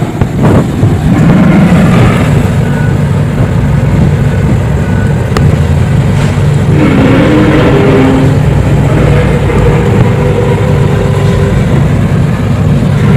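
A loud, steady low rumble with a few held, slightly wavering moaning tones coming in about six and a half seconds in, of the kind reported as an unexplained strange sound in the sky.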